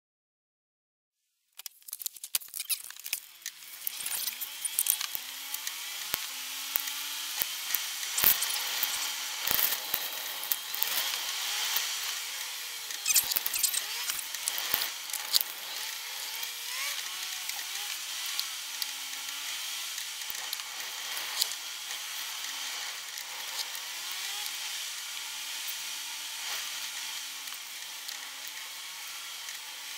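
Car engine and road noise recorded inside the cabin, played back sped up, so that it sounds like a high, buzzing whine with a wavering pitch. Many sharp clicks and rattles sound over it, most of them in the first half. It starts after about a second and a half of silence.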